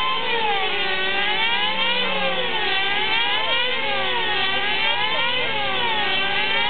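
Control-line aerobatic model airplane's engine running steadily at full power, its pitch swinging up and down every second or so as the plane circles and manoeuvres around the pilot.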